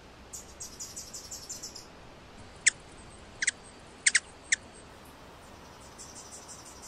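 Bird chirps: a quick run of faint, high ticking chirps, about six a second, then six short, louder chirps that each sweep down in pitch, some in close pairs, with more faint ticking near the end.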